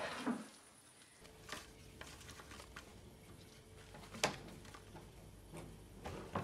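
Cardboard jigsaw puzzle pieces being handled and set down on a wooden table: a few light, separate taps and rustles, the sharpest about four seconds in, over a faint steady hum.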